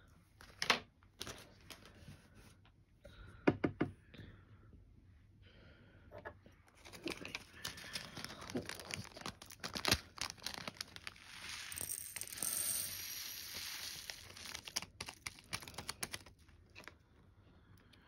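Plastic packaging being crinkled and torn open by hand, with a few sharp clicks, the loudest a short cluster about three and a half seconds in, and dense crinkling through the middle.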